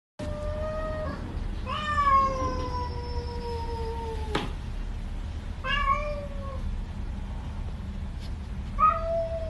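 Domestic cats in a face-off yowling: four drawn-out calls, the longest about three seconds and sliding slowly down in pitch. A sharp click cuts in about halfway through.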